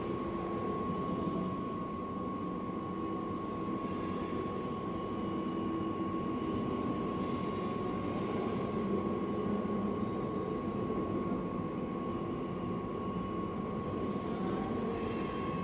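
Workshop machinery running steadily in a hydraulic hose shop: an even motor drone with a constant thin whine above it.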